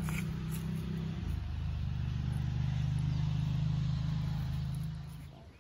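A low, steady engine drone that shifts slightly in pitch about a second in and fades out near the end.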